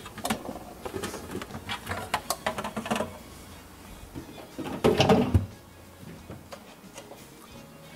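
Plastic chocolate moulds and a tray clattering as they are taken out of a refrigerator: a run of light clicks and rattles, then a louder rattle and knock about five seconds in.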